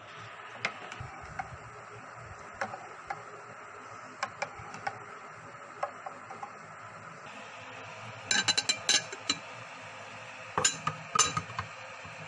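A metal spoon stirring sago pearls soaking in water in a ceramic bowl, with scattered light clinks against the bowl. In the second half come two short runs of louder, rapid china clinks.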